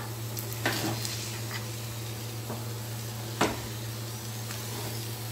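Thick ragi halwa sizzling steadily in ghee in a pan on a low flame while a spoon stirs it, with two sharp knocks or scrapes of the spoon against the pan, about a second in and again past three seconds. The ghee is separating out at the edges, the sign the halwa is nearly done.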